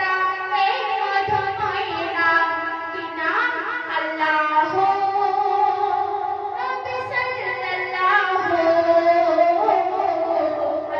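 A young woman singing a Bengali Islamic gojol (devotional song) into a handheld microphone. She holds long notes and slides between pitches in ornamented phrases.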